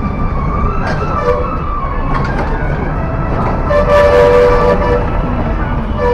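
Street traffic heard from a moving vehicle: a steady engine rumble, with vehicle horns sounding. The loudest horn comes about four seconds in and holds several tones at once for about a second.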